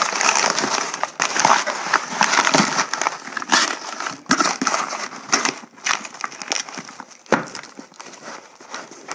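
Crinkling and rustling with irregular crackles as packing is shoved into a shipping box. It is loudest in the first half and quieter after about five seconds.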